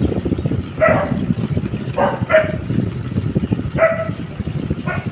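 A dog barking, about five short barks spread over a few seconds, two of them close together. Underneath is a steady low rumble of wind on the microphone from the moving bike.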